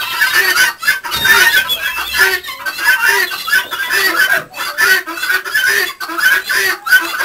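A flock of domestic guineafowl calling: harsh, rapidly repeated cackling calls from many birds at once, about two a second.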